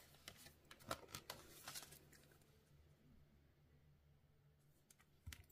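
Near silence, with a few faint taps and rustles of cardstock and plates being handled at a die-cutting machine in the first couple of seconds and again near the end.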